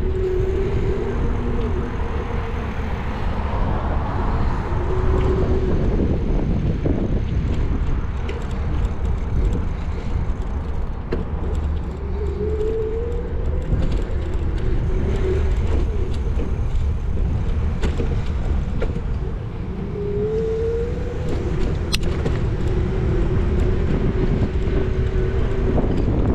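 Car driving along a city street: a steady low rumble of engine and road noise, with the engine's tone rising in pitch three times as it accelerates.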